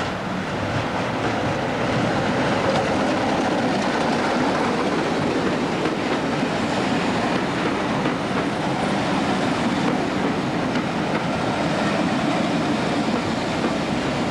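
Class 24 diesel-electric locomotive with a Sulzer six-cylinder engine running as the train rolls into the platform, followed by its coaches passing with wheels clicking over the rail joints as the train slows.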